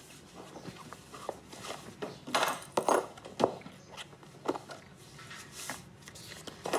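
Rustling and light knocks of things being handled and set down, with a cluster of louder rustles between about two and three and a half seconds in.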